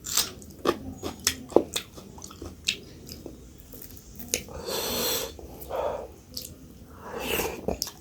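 Close-up mouth sounds of someone eating millet dhido with dried buffalo-meat sukuti: wet chewing and lip smacks with many sharp clicks. There are two longer breathy sounds, one about halfway through and one near the end.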